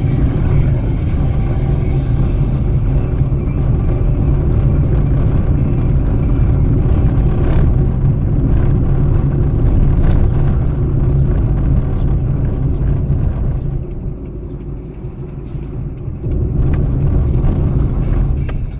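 Car driving along a road: steady engine and road rumble, which eases off for a couple of seconds near the end.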